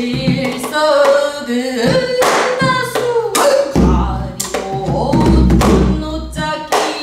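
Pansori singing in long, sliding vocal lines, accompanied by strokes on a buk barrel drum that give sharp raps and deeper booms.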